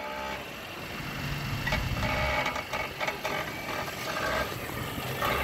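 Acura sedan's engine idling, a steady low hum.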